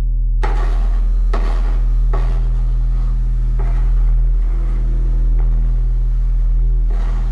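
Steel knife blade knocking and scraping against a metal desk top about six times at irregular intervals, over a loud steady low electrical hum.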